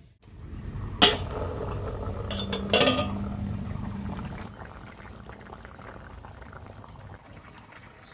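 Curry masala bubbling in a cooking pot, with a sharp metal clank about a second in and a second clatter near three seconds from a utensil against the pot.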